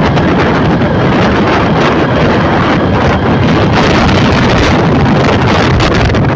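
Wind blowing hard against the microphone: a loud, steady rush of noise with no distinct tones.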